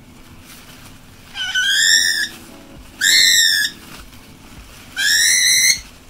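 Cockatiel screeching three times while held wrapped in a towel: harsh calls under a second each, arching slightly up then down in pitch, about a second and a half apart.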